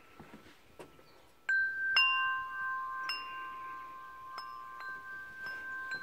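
Metal tube wind chime ringing: after a few faint ticks, several strikes from about a second and a half in, each leaving long ringing tones that overlap and hang on.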